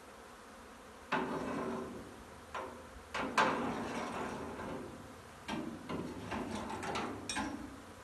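A long-handled masonry hoe knocking and scraping against a steel roof beam: a clatter about a second in, more around three seconds, and a quick run of knocks between about five and a half and seven and a half seconds, as a honey bee swarm cluster is dislodged. The swarm of honey bees buzzes underneath.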